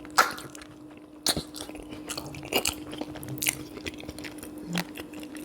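Close-miked eating sounds: a person biting into and chewing a mouthful of sweet potato and sausage coated in butter sauce, with short wet smacks and clicks at irregular moments.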